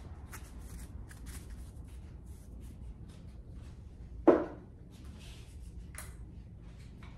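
Small clicks and rustles of a barber handling tools at the station, with one dull thump about four seconds in and a short sharp click near six seconds.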